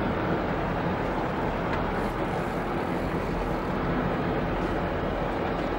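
Sport-fishing boat's engine running steadily, a low hum under a constant rush of wind and water.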